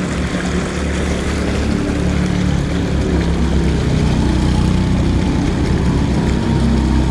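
Steady, loud low engine drone of motor vehicles, its hum shifting slightly in pitch.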